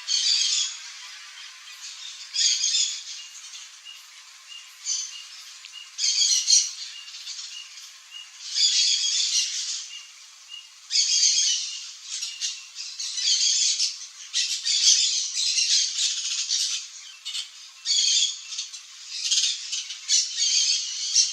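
Turquoise-fronted parrot (Amazona aestiva) calling: repeated harsh calls in short bouts about every two seconds, coming closer together in the second half.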